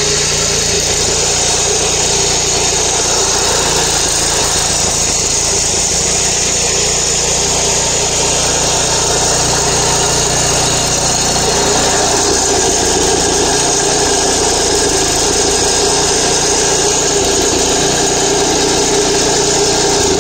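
Small petrol engine driving the hydraulic pump of a rail weld trimmer, running steadily while the trimmer shears the excess metal off a fresh rail weld. It gets a little louder about halfway through.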